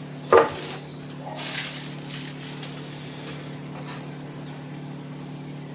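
Rustling of packaging as a boxed set of Japanese chisels is handled, in soft bursts, after a short voice sound near the start, over a steady low hum.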